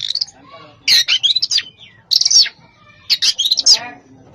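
Caged songbird singing in bursts of rapid, high chirps and harsher rattling notes, a varied song of mimicked phrases (isian), four outbursts with short pauses between.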